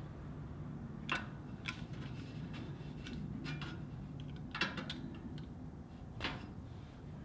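Light clicks and taps of hands handling the rubber garage door bottom seal at the edge of the door, four sharp ones spread out, the loudest a little past halfway, over a low steady hum.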